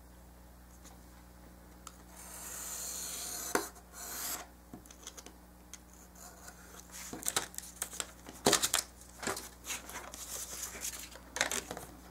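A craft knife drawn through paper along a straight edge: a scraping hiss lasting about a second and a half that ends in a sharp click, then a second, shorter stroke. Later comes a run of short crackly paper rustles and light taps.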